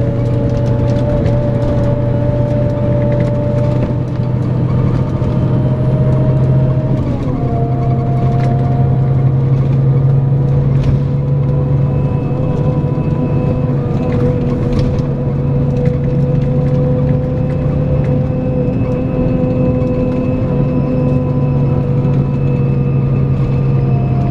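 Scania K410EB6 coach's 13-litre six-cylinder diesel running steadily under way with a steady hum and whine; its pitch drops once about seven seconds in, then holds.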